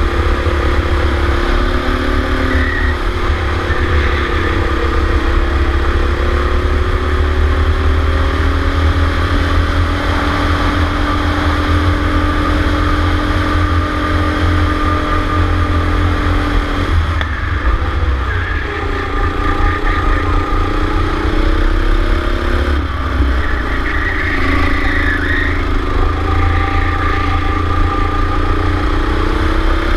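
Go-kart engine heard from the kart itself, its pitch climbing slowly along a straight, then dropping sharply about 17 seconds in as the driver lifts off, and rising and falling through the following corners. A heavy low rumble runs underneath.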